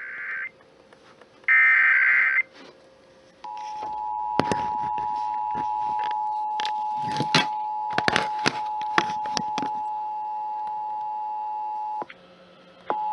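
Emergency Alert System broadcast: the end of the warbling SAME header data bursts, then the two-tone EAS attention signal held steady for about eight and a half seconds, with scattered clicks over it. The tone cuts off, then starts again just before the end. The sequence marks an EAS alert, here a required monthly test.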